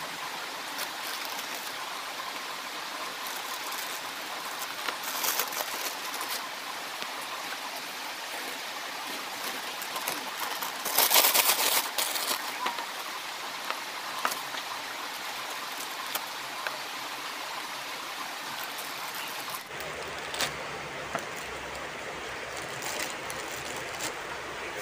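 A clear plastic bag rustling and crinkling as bait dough is spooned into it, with scattered light clicks and a louder crinkle about eleven seconds in, over a steady background hiss.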